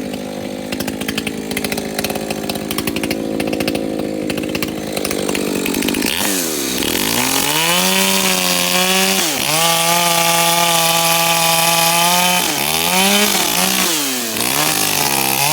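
Modified Shindaiwa 591 two-stroke chainsaw running at a lower, wavering pitch for about six seconds, then revved up to full throttle and held there. Near the end the throttle is let off and opened again twice, the pitch falling and climbing each time.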